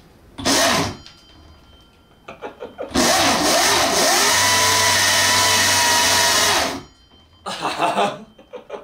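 A 6000 W, 72 V electric motor on a mini bike is blipped briefly twice, then held at full throttle for about four seconds. It makes a steady whine over a loud rushing noise from the rear tire, which spins hard enough to smoke, and then it cuts off suddenly. A man laughs near the end.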